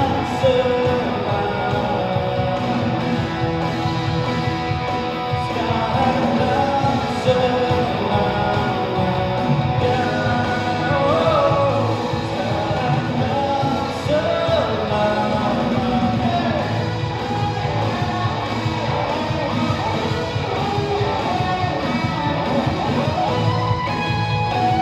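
Live band music: a song sung over guitar and full band accompaniment, played steadily throughout.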